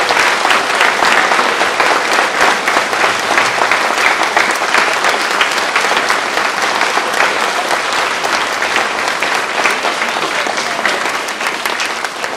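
Audience applauding: dense, steady clapping from a large crowd that tapers off near the end.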